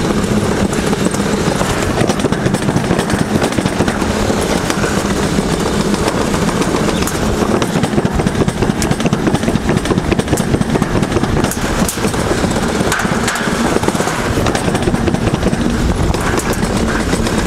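Alpine slide bobsled running flat out down its chute with no braking: a loud, steady rolling noise with a low hum underneath and scattered clicks and knocks from the ride.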